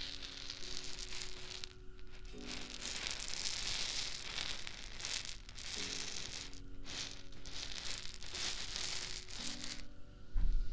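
Crinkling, rustling sounds of a prop being handled, in stretches of a few seconds with short pauses, over soft background music holding sustained chords; a low thump near the end.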